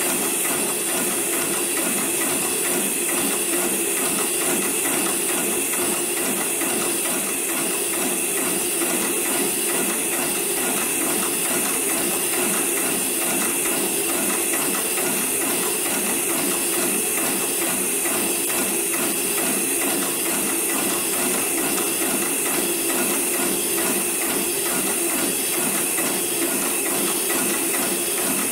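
Hightex 733PLC/R automatic heavy-duty bar tacker running continuously, its needle stitching a bar tack through a thick rope in a rapid, even run of stitches, over a steady high hiss.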